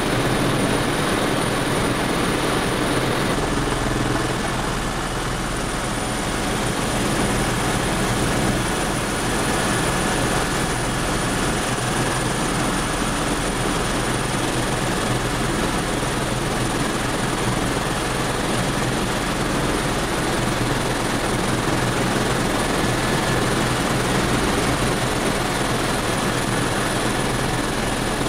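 Helicopter heard from inside the cabin in flight: steady rotor and engine noise, with a faint high steady whine on top.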